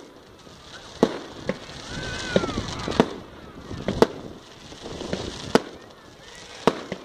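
Firework shells bursting overhead: a series of sharp bangs at uneven intervals, roughly one a second.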